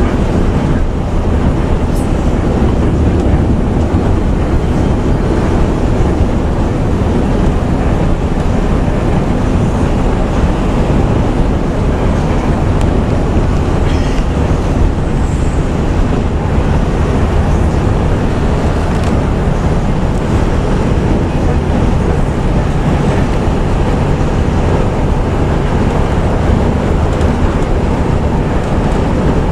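Intercity bus at highway cruising speed, heard from inside the cab: a steady engine and exhaust drone under constant road and tyre noise.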